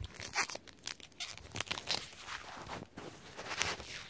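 Foil wrapper of a Pokémon trading-card booster pack crinkling and tearing as it is opened by hand, a run of irregular crackles.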